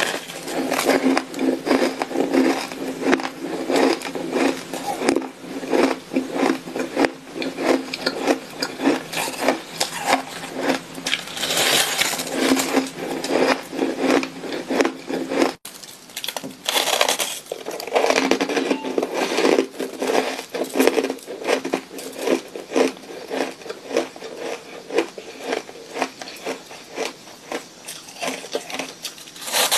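Shaved ice being bitten and chewed right at a clip-on microphone: rapid, crisp crunching, with a brief gap about halfway through.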